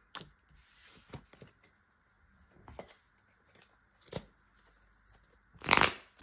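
Tarot cards being handled and shuffled by hand: a few soft slides and taps, then a louder burst of shuffling near the end.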